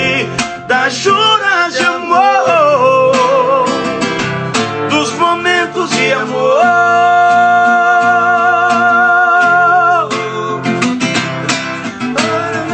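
A man singing a slow sertanejo ballad to his own strummed acoustic guitar, holding one long note for about three and a half seconds midway, recorded on a phone.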